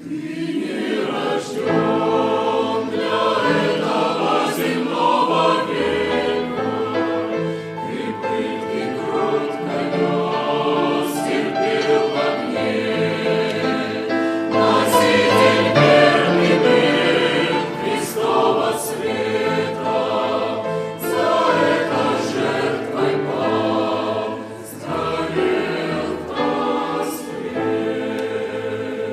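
Choir singing a slow hymn, several voices holding long notes together.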